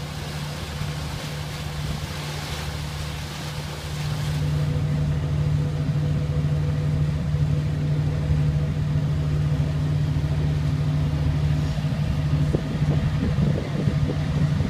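The ferry tug's engine running under way in a steady drone, which grows louder about four and a half seconds in, with water churning in its wake.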